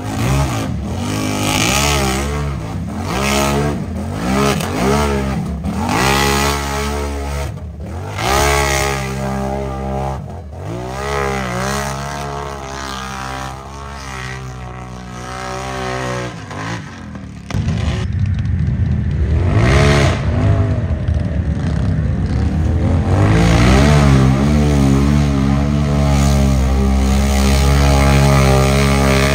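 Mud bog racing truck's engine revving in repeated rising-and-falling blips, then about seventeen seconds in it jumps to a louder run held at high revs.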